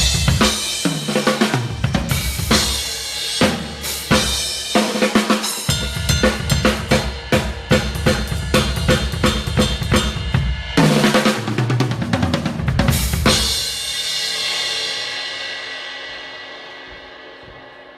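Acoustic Crush drum kit with Zildjian cymbals played hard, with rapid fills that run down the toms, snare and bass drum. About thirteen seconds in a final hit leaves the cymbals ringing and slowly fading out.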